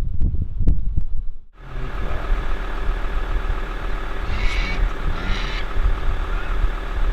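A cat purring close to the microphone as a low pulsing rumble. About a second and a half in, this cuts to a vehicle engine running steadily at idle, with brief hissy patches twice in the middle.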